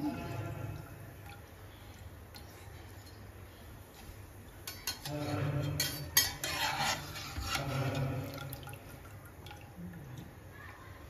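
Hot oil dripping back into the pan from fried besan sev lifted out on a slotted metal skimmer, with a few sharp clicks of the skimmer against the pan about six seconds in.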